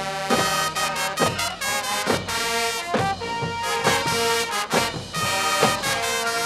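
High school marching band playing: held brass chords over sharp, regular drum strokes.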